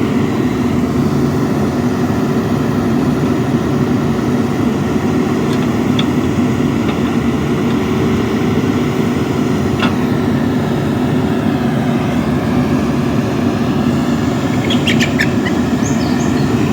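Diesel engines of a JCB 3DX backhoe loader and a tractor running steadily while the backhoe loads mud into the tractor's trolley.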